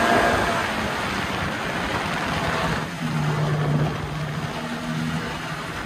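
Small jet boat's Kawasaki engine running under way, with the rush of water and wind around the hull. The engine tone steadies about three seconds in.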